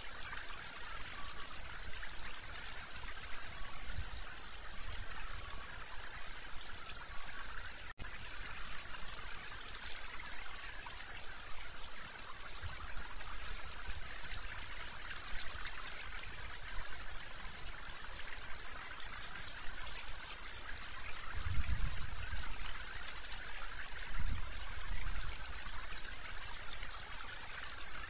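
Outdoor ambience: a steady rushing hiss like running water, with thin, high bird calls scattered through. Two low rumbles come in the last third.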